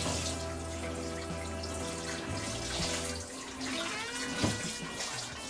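Background music with held chords over a steady rushing hiss like running water.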